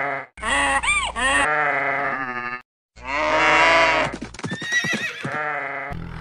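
Two long farm-animal calls one after the other, each with a wavering, gliding pitch, broken by a sudden cut to silence. A few sharp clicks follow the second call.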